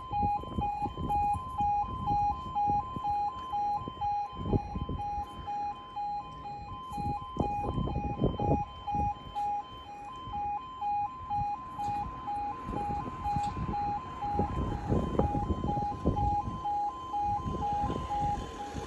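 Level crossing audible warning alarm sounding a steady two-tone signal, switching rapidly back and forth between two pitches, while the crossing is being test-operated during repairs. Low rumbles come and go underneath.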